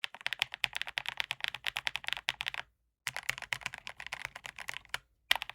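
Fast typing on a mechanical keyboard with stock mint mambo switches under KOA-profile keycaps: rapid clacking keystrokes, a brief pause a little over halfway through, then more typing and a short last flurry near the end.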